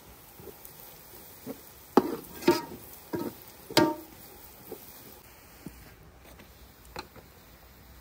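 Spoon stirring food in a metal cooking pan and knocking against it: four loud ringing clinks in the middle, then a few lighter taps.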